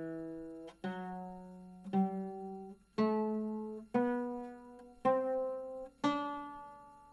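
Oud played one plucked note at a time, about one note a second, climbing step by step in a slow ascending scale. Each note rings and fades before the next; the last is left to ring out.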